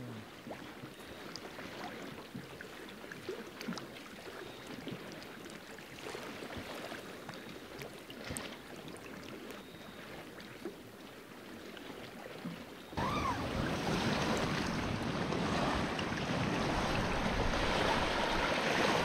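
Small waves washing onto a shell-grit beach, faint at first with small ticks of lapping water. About two-thirds of the way in the sound turns louder and steadier as the surf and wind on the microphone take over.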